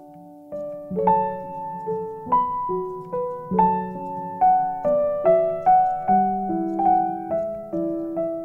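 Piano music: a slow melody of single struck notes, each ringing on and fading before the next.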